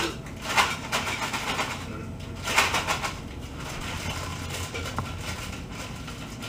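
Plastic bag of pre-chopped onions crinkling and rustling as it is shaken out over a crock pot, in a few bursts over the first three seconds.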